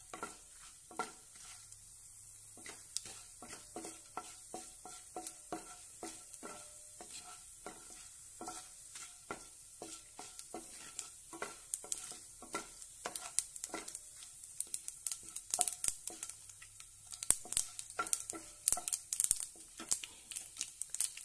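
Oil sizzling in a nonstick kadai as dried red chillies and tempering seeds fry, while a wooden spatula stirs and knocks against the pan about twice a second, each knock ringing briefly. The sizzle grows louder and crackles more in the last several seconds.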